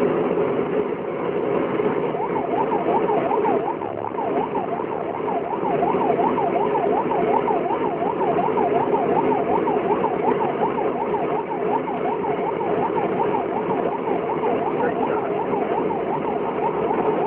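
A siren yelping, its pitch sweeping quickly up and down about three times a second, starting about two seconds in. Under it, the steady running of the heavy vehicle's engine.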